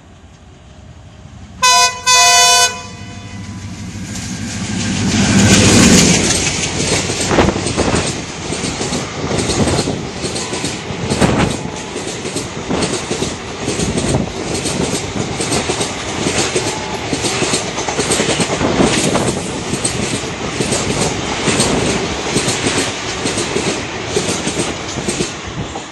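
WDM3A diesel-electric locomotive sounding its horn twice, a short blast then a longer one, then passing at speed, loudest about six seconds in. Its coaches follow with a steady rhythmic clickety-clack of wheels over the rail joints.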